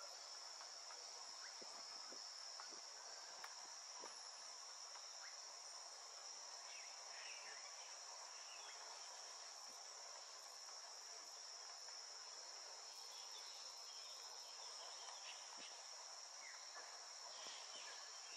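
Faint, steady high-pitched drone of insects, one unbroken buzz held at the same pitch throughout, with a few faint scattered chirps.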